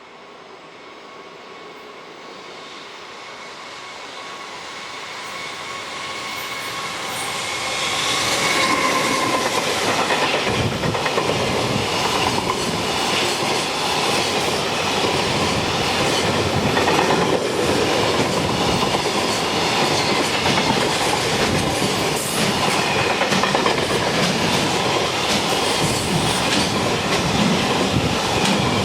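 A train approaching and then passing close by. It grows steadily louder over the first eight seconds, with a steady high whine that fades as it arrives, then a continuous rumble of wheels clattering over rail joints.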